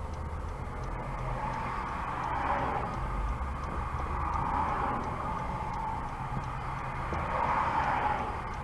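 Road and engine noise of a moving car heard from inside the cabin: a steady low rumble, with tyre and traffic noise swelling and fading three times.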